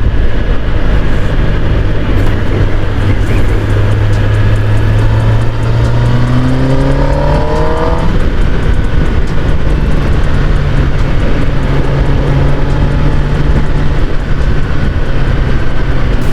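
Kawasaki ZX-10R's inline-four engine running under way with wind rush on the helmet-mounted microphone. About six seconds in, the revs climb for two seconds and then fall away abruptly, before the bike settles back to a steady drone.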